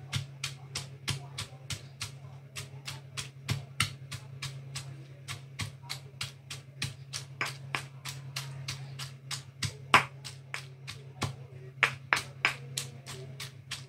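Stone pestle pounding in a stone mortar, crushing ingredients with sharp knocks at about three strikes a second, one strike louder than the rest about ten seconds in. A steady low hum runs underneath.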